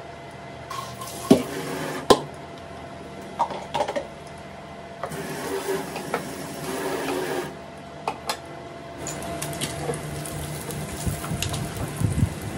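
Tap water running into a stainless steel sink in two short spells, with clicks and knocks of a spatula against a nonstick frying pan, over a steady hum.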